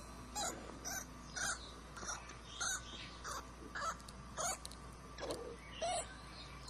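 Baby rabbit screaming in distress: a string of about nine short, harsh cries, one every two-thirds of a second or so.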